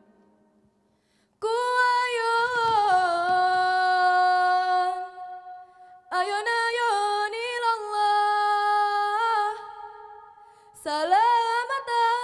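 A woman singing solo and unaccompanied: three long, slow, ornamented phrases, each ending on a held note, the first starting about a second and a half in.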